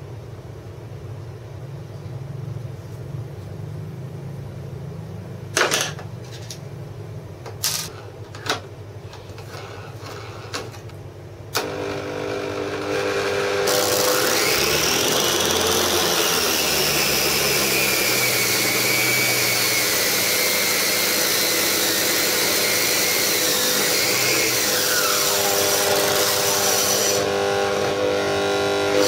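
A few sharp knocks from handling, then about twelve seconds in an angle grinder driving a homemade spindle sanding drum is switched on and spins up to a loud, steady high whine. Near the end the whine's pitch dips and falls away.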